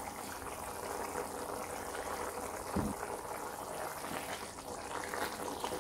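Thick yogurt-based masala gravy with green peas simmering in a pan, bubbling and popping softly and steadily, with one soft knock about three seconds in.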